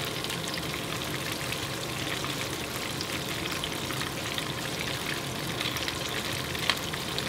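Salmon fillets sizzling steadily as they fry in oil in a pan, with many small pops and crackles. One sharp tap sounds near the end.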